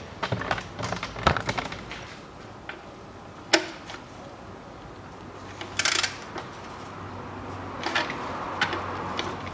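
Scattered metallic clicks and knocks of hand tools working at the oil pan drain plug under a car as the engine oil is let out, with a single sharp click a few seconds in and a short hiss a little later.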